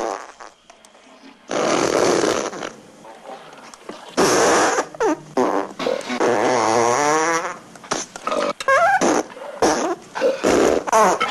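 A string of loud farts, one after another. The first comes about a second and a half in; one long fart has a wavering pitch; several short ones come in quick succession near the end.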